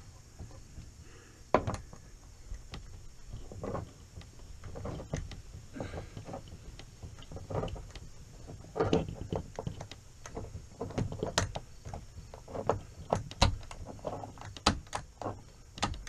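Pliers squeezing a pop-up camper canvas's strip into its roof-edge track: a run of irregular clicks and snaps, sparse at first and coming closer together in the second half, as the strip is locked in.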